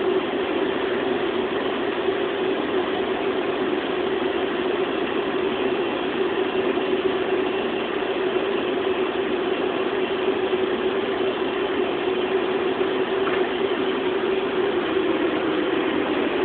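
Steady machine drone, a motor or fan running without a break.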